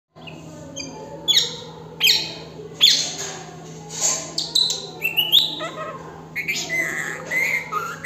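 Plum-headed parakeet calling: three loud, shrill calls that sweep downward in pitch in the first three seconds, then a run of varied chattering and warbling notes.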